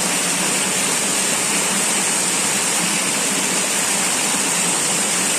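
Shallow rocky stream rushing over and between boulders, a steady, even rushing of water.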